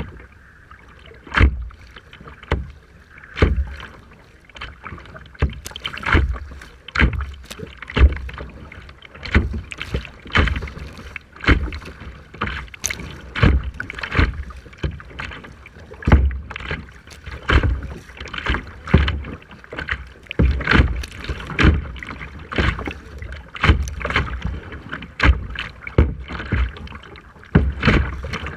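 Choppy water splashing and slapping in sharp, irregular hits about once or twice a second, as in a small boat or kayak working through rough water.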